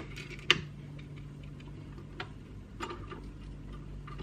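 Light clicks and taps of hands handling a small RC winch, its line and a hanging scale's hook: one sharp click about half a second in, then a few fainter ticks, over a faint steady low hum.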